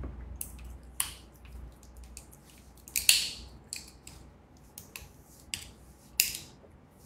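A few short rustles and clicks spaced a second or two apart, the clearest about three and six seconds in.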